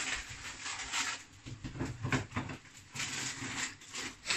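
Kitchen handling noises: a short rustle, then scattered light knocks and taps, with a somewhat louder knock near the end.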